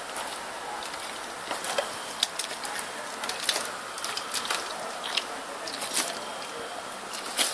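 German Shepherd chewing grapes taken from a hand: irregular short smacks and clicks of its jaws and mouth.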